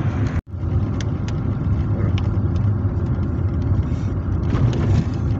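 Steady in-cabin road noise of a car driving on a wet road: low engine and tyre rumble, with a few light ticks. The sound drops out briefly about half a second in.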